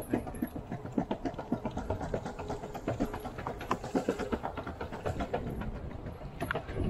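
Skateboard wheels rolling fast along a concrete sidewalk: a constant low rumble with a dense run of clacks and knocks from the rough pavement and the joints between the slabs.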